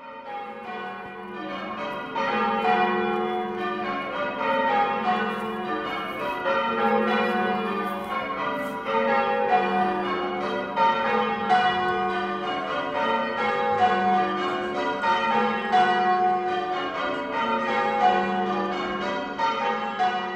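A ring of church tower bells ringing changes, the bells struck one after another in a steady repeating rhythm. It fades in at the start.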